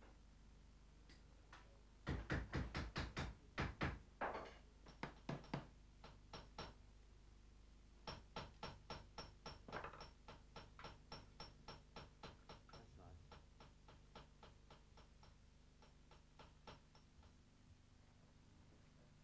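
Silversmith's hammer striking silver. About two seconds in comes a quick run of loud strikes, then a few spaced blows, then a long, even series of lighter, ringing taps, about three a second, that fade away.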